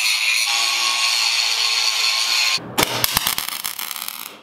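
Angle grinder grinding steel tubing: a steady, hissing high whine. About two and a half seconds in it gives way to the irregular crackle of a wire-feed welding arc on steel, which fades near the end.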